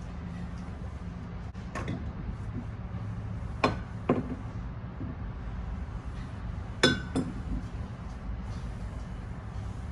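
Dishes or glassware being handled: about five sharp clinks, in pairs, some ringing briefly, over a steady low hum.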